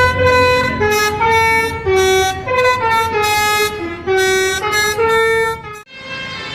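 Bus 'basuri' telolet horn playing a quick tune of held notes that step up and down in pitch, cutting off abruptly about six seconds in.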